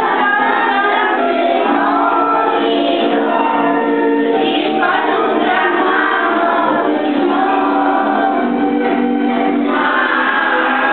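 A class of young children singing a song together as a group, holding long notes.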